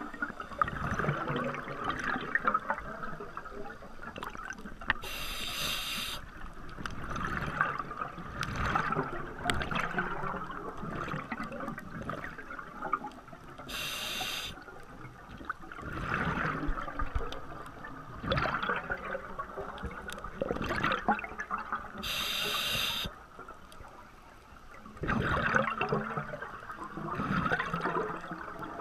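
A scuba diver breathing through a regulator underwater. A short hiss of the inhale comes about every eight seconds, with long bubbling exhalations between.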